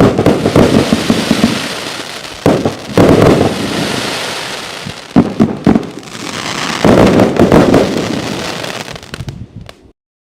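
Riakeo 'Tsunami' firework going off in repeated volleys of sharp bangs and crackle, each volley dying away before the next. The last volley fades and the sound stops shortly before the end.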